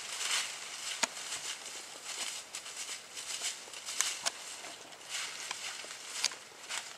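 Close, uneven rustling, crackly and pitched high, with a few sharp clicks: about a second in, twice near the four-second mark and once past six seconds.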